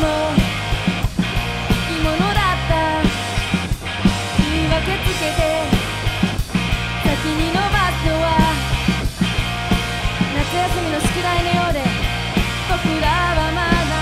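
Live rock band playing a song on drum kit, electric bass and electric guitar, with a melody line gliding over steady bass notes and a regular beat.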